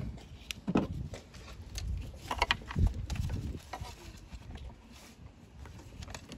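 Irregular clicks, taps and knocks of hand work in a car engine bay: a screwdriver pressing the release on a plastic fuel-line quick connector while the line is worked off, with some rustling of handling.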